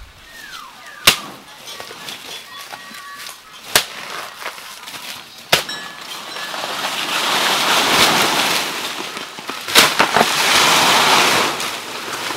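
Four sharp chopping strikes of a blade into banana plant stems, a couple of seconds apart. From about six seconds in, a long rustling of banana leaves and brush, with the last strike inside it.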